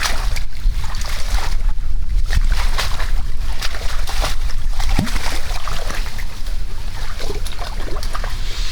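Tour boat under way on a river: a steady low rumble with rushing, splashing water noise.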